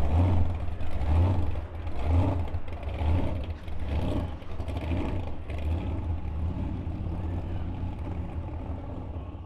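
Supercharged 440 stroker V8 of a 1971 Dodge Demon running with a deep rumble that swells in uneven pulses as the car pulls away, fading steadily as it drives off.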